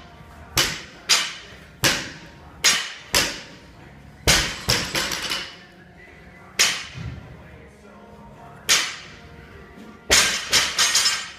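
Sharp knocks and clanks of a loaded barbell and weights meeting a rubber-matted gym floor. About ten hits come at irregular spacing, some in quick pairs, with a rattling run of hits a little after four seconds and another near the end.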